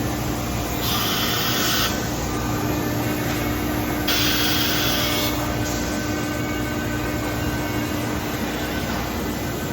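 CNC router running, a steady machine hum with a held tone, broken twice by a hissing rush of about a second, about one second and four seconds in.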